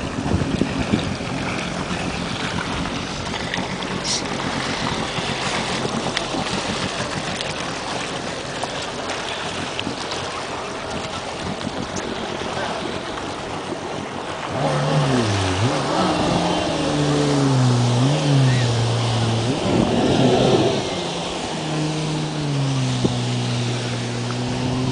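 Jet ski engine running amid wind and splashing water. About halfway through its pitch rises and falls repeatedly as the throttle is worked, then settles into a steady note near the end.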